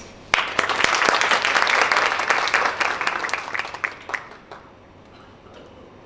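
Audience applauding: many hands clapping, starting suddenly and dying away after about four seconds.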